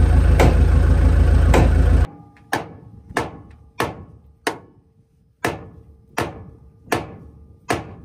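A loud engine runs with a couple of sharp knocks over it, then stops abruptly about two seconds in. A steady series of hammer blows on steel follows, about eight strikes some 0.7 s apart, each ringing briefly.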